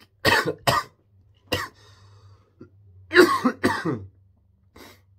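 A man coughing into his fist, ill with what he half calls the flu: two quick coughs, a third about a second later, then a louder run of three coughs near the end, with a last faint one.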